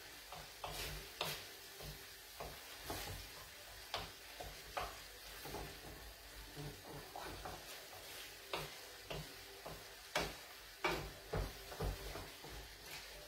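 Wooden spoon stirring fettuccine in sauce in a stainless-steel frying pan on a lit gas burner: soft, irregular knocks and scrapes against the pan over a faint sizzle as the pasta finishes cooking in its sauce. The knocks come closer together and louder near the end.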